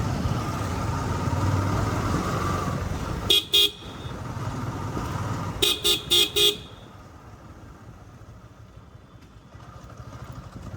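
Motorcycle riding noise in traffic, with a vehicle horn tooting twice about three seconds in and then four quick toots near the middle. The rumble drops off sharply after about seven seconds.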